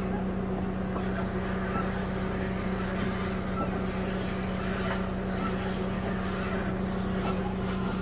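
Diesel engine of a Massey Ferguson telescopic loader idling steadily, heard from inside the closed cab, with an even hum and no change in speed.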